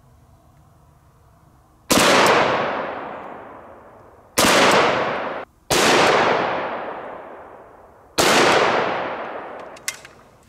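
AK-47 rifle firing 7.62×39 full metal jacket rounds: four single shots a couple of seconds apart, each with a long echo fading out behind it. The second shot's echo is cut off abruptly by an edit.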